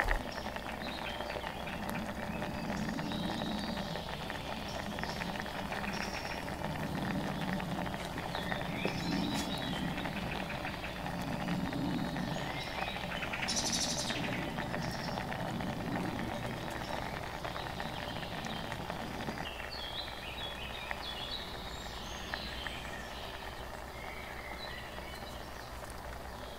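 Birds chirping and calling now and then over a steady outdoor background, with one brief higher sound about two-thirds of the way through.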